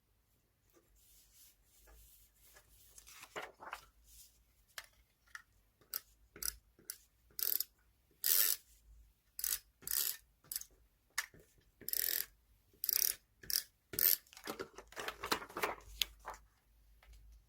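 Magazine paper being handled: a run of short, crisp paper rustles and crinkles, sparse at first and coming quicker and louder from about six seconds in.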